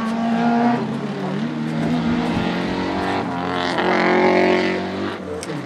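Hill-climb race car engine revving high under hard acceleration, its pitch dropping and climbing again as it shifts gears, loudest about four seconds in.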